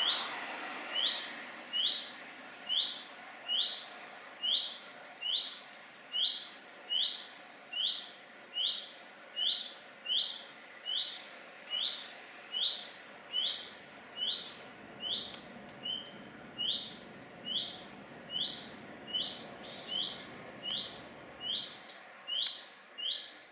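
A redstart repeating one short rising whistle over and over, evenly, a little more than once a second. The whistle is its only song here, which the observer takes for a young fledgling's call.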